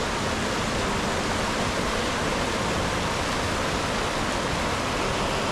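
Steady rushing water, an even, unbroken hiss.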